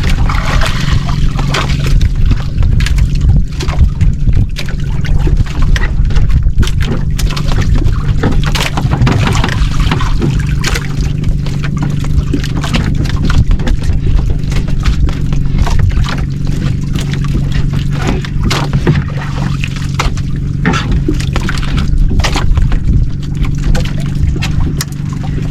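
A small fishing boat's engine running steadily, with water splashing and sloshing against the hull.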